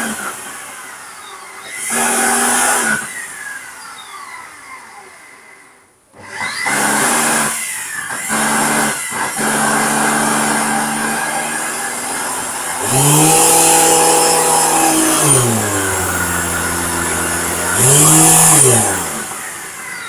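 LG 1800 W canister vacuum cleaner motor running with a vibrating hum that sounds like a car engine. Its pitch sweeps up and back down like revving several times, and the sound drops almost to nothing about six seconds in before picking up again. The owner suspects a ball bearing in the rotating ring is dry or clogged with dust.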